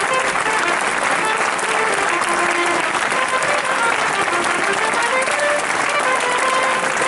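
A crowd applauding steadily, with voices mixed in.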